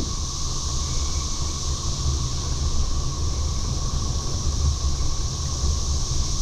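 Loud cicada chorus, a steady high buzz with a lower steady drone under it, over a low rumble of wind buffeting the microphone while cycling.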